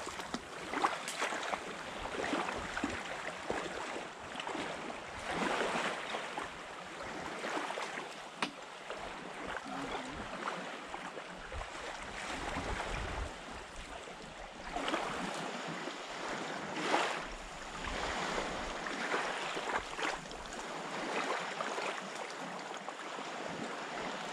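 Small waves lapping and washing at the water's edge, swelling and easing every few seconds.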